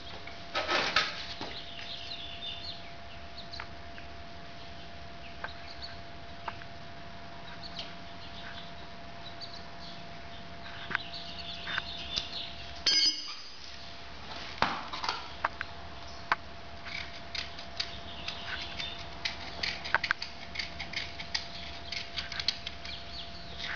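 Farrier working on a horse's hoof held between his knees: irregular scrapes and clicks of hands and tools on the hoof, busier in the second half, over a faint steady hum.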